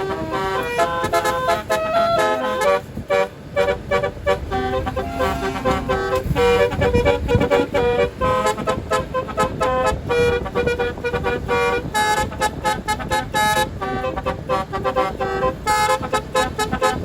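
Tour bus's telolet basuri musical air horn playing a fast melody, its clear horn notes jumping from pitch to pitch in quick succession.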